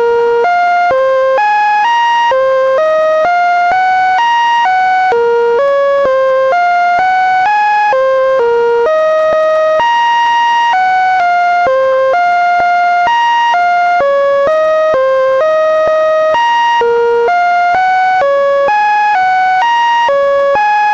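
Computer-generated electronic tones: a continuous stream of short synthesized notes jumping from pitch to pitch about three times a second, with a few held longer, made by rendering Linux kernel data as sound.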